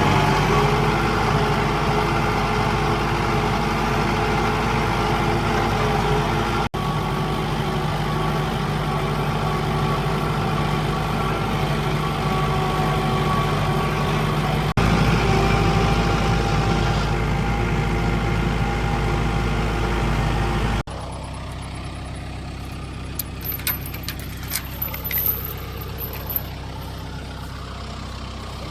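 Farm tractor engine running steadily, heard in several cut-together stretches, noticeably quieter in the last part from about 21 seconds in, with a few light clicks near the end.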